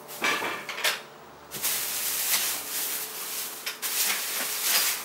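A large steel ammo can clunks twice as it is set down on a tile table. Then the clear plastic wrap on a second ammo can crinkles and rustles for a few seconds as it is handled.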